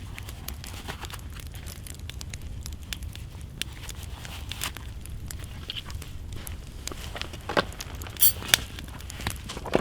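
Wood fire crackling with scattered small pops and a few louder snaps in the last few seconds, over a steady low rumble.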